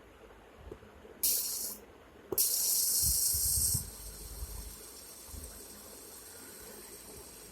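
Two sudden bursts of high-pitched hiss, the first brief and the second lasting about a second and a half, each starting and stopping abruptly.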